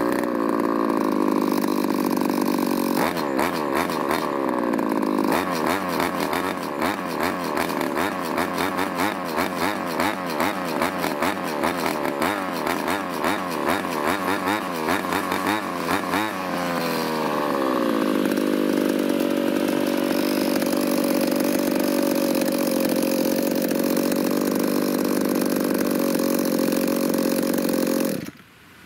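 Two-stroke brush cutter engine with an expansion chamber exhaust. It runs steadily, then a few seconds in is revved up and down rapidly over and over for about thirteen seconds. It drops back to hold a steady speed and cuts out suddenly near the end.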